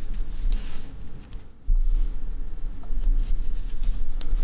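Faint rustle and light ticks of a crochet hook pulling yarn through half double crochet stitches, over a low steady hum that briefly drops out about a second and a half in.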